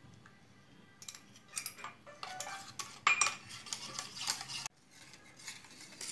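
Hand wire whisk beating milk with coffee and sugar in a steel saucepan: quick, rapid clinking and scraping strokes of the wire against the metal pan, frothing the milk for cappuccino. The sound starts about a second in, breaks off abruptly about two-thirds of the way through, then goes on more softly.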